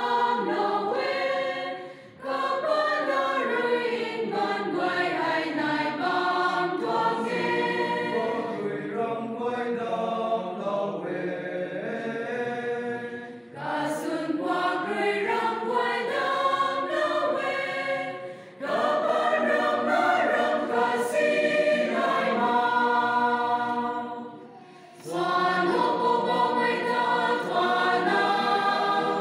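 Church choir of women singing together, phrase after phrase, with short breaks for breath between phrases.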